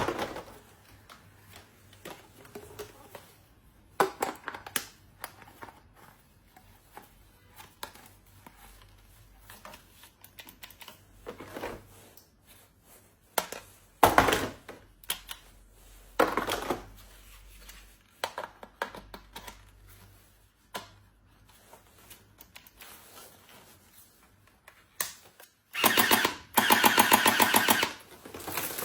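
Scattered clicks and short rustles of a small toy and its packaging being handled, with a fast run of rapid clicking lasting about three seconds near the end.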